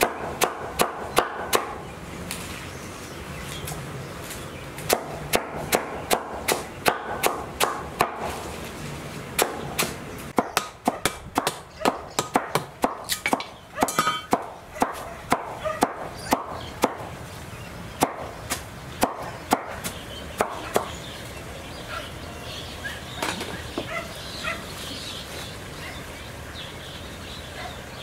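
Repeated chopping blows, sharp strikes several a second in runs of a few seconds, thinning to a few scattered blows in the last several seconds.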